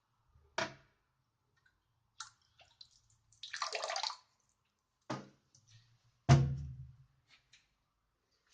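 A brief rush of water from a bathroom tap, under a second long, in the middle, among several sharp knocks and clunks, the loudest about two-thirds of the way through.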